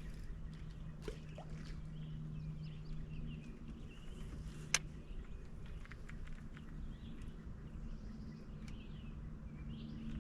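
Birds chirping on and off over a steady low hum, with one sharp click about four and a half seconds in.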